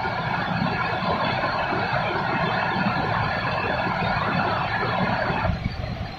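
Steady hiss of rain falling over a city, with a low rumble of street traffic underneath; the hiss eases about five and a half seconds in.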